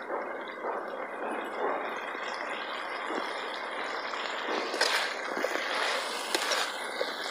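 Chicken and masala sizzling in a steel kadai while a perforated steel ladle stirs it, scraping and clinking against the pan, with a few sharper clinks about five and six and a half seconds in.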